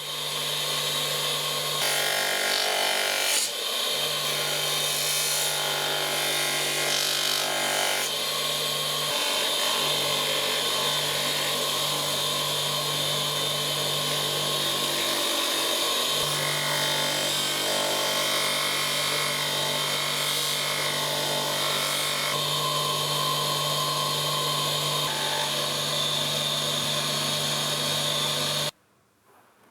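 A power tool driven by a salvaged washing-machine motor runs with a steady hum while material is worked against it, making a grinding, rubbing noise that changes every few seconds. It cuts off abruptly about a second before the end.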